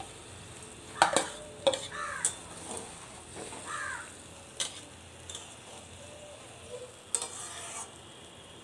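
Paneer cubes tipped from a plastic bowl into a metal pan of simmering gravy and stirred in, with several sharp knocks of bowl and spoon against the pan over the gravy's faint sizzle.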